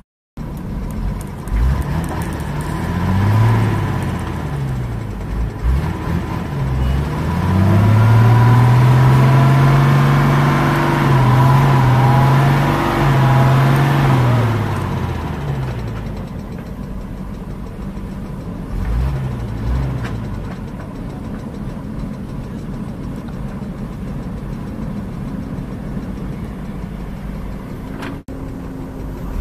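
Diesel engine of a JCB backhoe loader revving up and down repeatedly, loudest in the middle, then settling back to a steadier lower running note.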